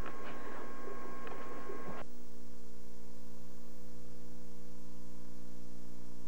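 Faint room noise with a few light taps. About two seconds in it cuts abruptly to a steady electrical hum with hiss, the noise of blank videotape between recordings.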